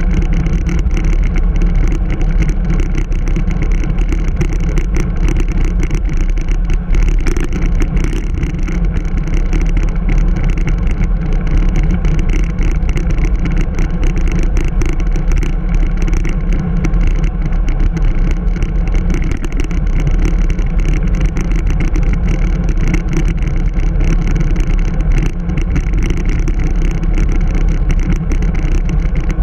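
Steady, loud wind rumble on an action camera's microphone from riding a bicycle at speed, heaviest in the low end and unbroken throughout.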